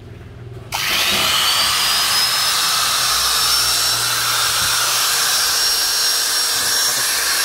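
Used corded electric angle grinder switched on without load: the motor's whine rises over about a second and a half as it spins up, then runs steady at full speed.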